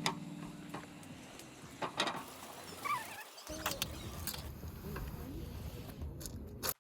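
Faint outdoor ambience with scattered light taps and clicks; the sound drops out briefly a little after three seconds in.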